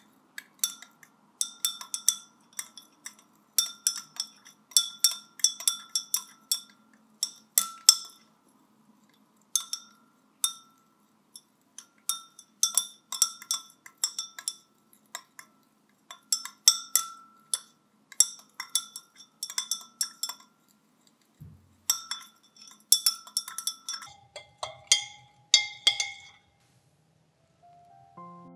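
A stirring rod clinking against the inside of a glass beaker as liquid is stirred: quick, irregular runs of bright clinks, each ringing briefly, broken by short pauses. Near the end the clinks ring at a lower, different pitch.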